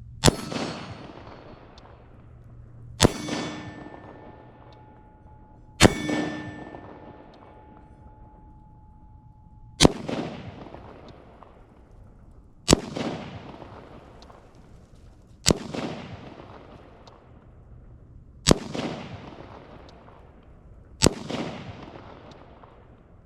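Eight single gunshots, one about every three seconds, each followed by an echo rolling away across open ground. The first three leave a lingering metallic ringing after them, like struck steel target plates.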